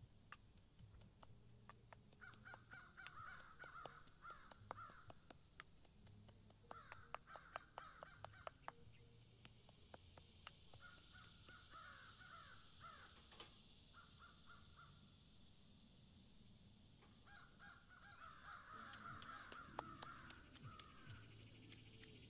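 Faint crows cawing in about five runs of harsh repeated calls, over a steady high hiss. Scattered sharp knocks come from a cleaver on a wooden chopping block and a pestle in a wooden mortar.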